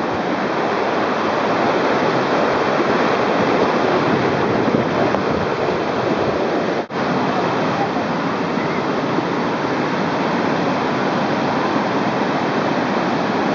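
Whitewater river rapids rushing, a loud, steady roar of churning water. It breaks off sharply for an instant about seven seconds in, then carries on.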